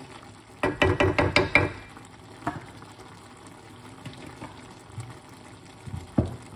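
A wooden spoon knocked quickly against the rim of an aluminium cooking pot, about eight taps in a second, then single knocks twice later. Under it, the faint bubbling of vegetables steaming in the pot.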